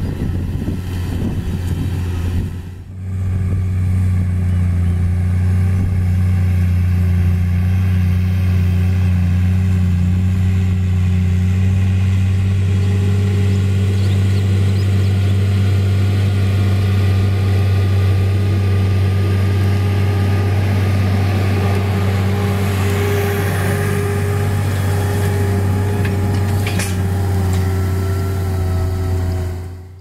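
New Holland T6.130 tractor's diesel engine running steadily under load as it pulls a 24-disc offset disc harrow through the field. The level dips briefly about three seconds in, and a rushing hiss comes in on top near the end.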